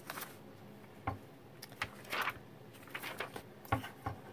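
Printed vellum sheets being handled and shuffled: a scatter of faint rustles and light taps.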